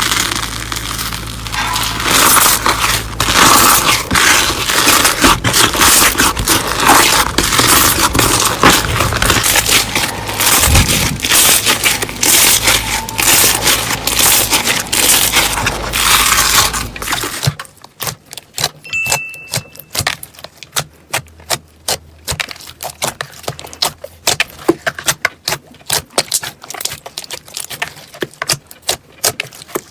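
Slime being squeezed and worked by hand, giving a dense run of crackling, clicking pops. After about seventeen seconds it thins out to scattered separate clicks.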